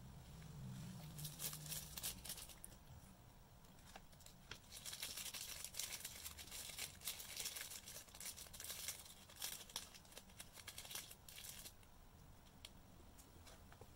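Crinkling of a small plastic sauce bag as it is squeezed and scraped out with a plastic spoon, with rustling of the paper wrapping. It comes in scratchy bursts, the longest in the middle.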